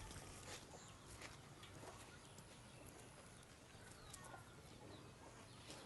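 Near silence: faint farmyard background with distant chickens and a few soft clicks.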